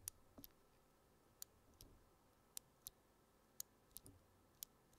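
A loose mechanical keyboard switch pressed by hand right at the microphone, giving about ten faint clicks at uneven intervals. The switch has a click that can be felt but makes little noise.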